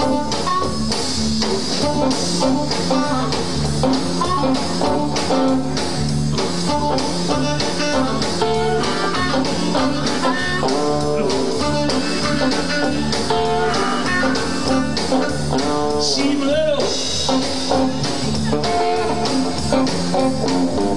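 Live blues band music led by a Gibson Les Paul electric guitar playing bending lead lines over a steady rhythm.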